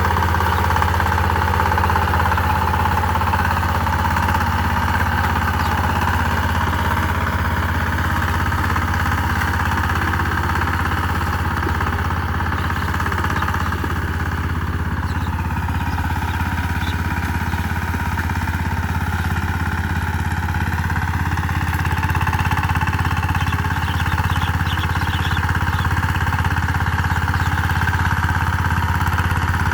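Power tiller engine running steadily with a constant low hum.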